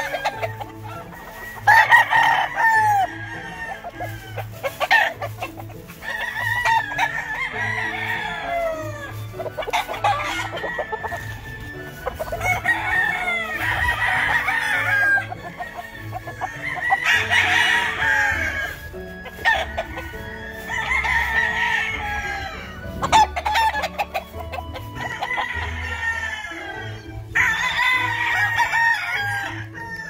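Gamefowl roosters crowing one after another, a crow every two to three seconds, with a background music track's steady low beat underneath.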